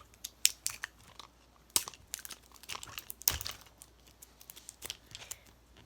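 Plastic wrapping being picked at and peeled off a small toy, crinkling and tearing in irregular crackles; the wrapping is stuck and comes away with difficulty.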